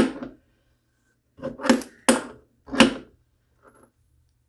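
A wrench snugging the compression nut of a braided stainless faucet supply line onto the faucet stem: several short scraping strokes, roughly half a second to a second apart, with a fainter one near the end.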